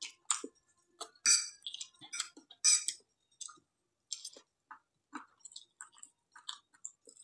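Close-up eating sounds of fried instant noodles being forked up and chewed: short wet mouth noises and light clicks of a fork on the plate. Two louder noisy sounds come about a second and a half apart.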